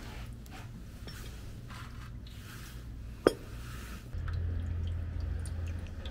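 The oil drain bolt on a Honda Vision 110 scooter's crankcase is turned loose with a T-handle socket wrench, giving soft scraping turns and one sharp metallic click a little over three seconds in. After that comes a steady low hum with faint drips as the used engine oil drains out.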